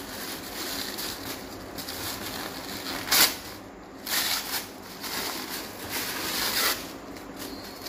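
Thin plastic packaging rustling and crinkling as a handbag is pulled out of its wrapper, with a few louder crinkles about three, four and six seconds in.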